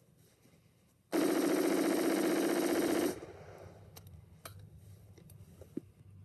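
AR-15 rifle firing one rapid, continuous string of shots lasting about two seconds, then stopping abruptly. A few light clicks follow.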